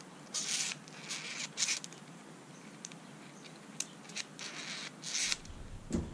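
Hands handling a bicycle chain keeper (dummy hub) and its quick-release skewer: short rustling scrapes and a few small sharp clicks, scattered and irregular.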